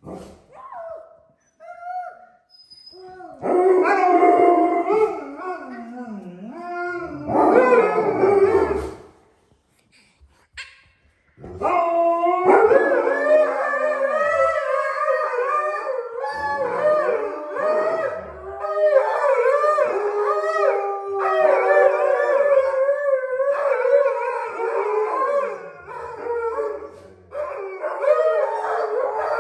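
Several Alaskan malamutes howling. A few long wavering howls come first, then a short pause about a third of the way in, then a continuous chorus of overlapping howls at different pitches.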